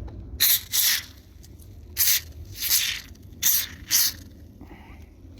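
Aerosol spray grease hissing from the can in six short bursts, in three pairs, as the coil spring in a folding wing mirror's mechanism is lubricated to cure its clicking noise.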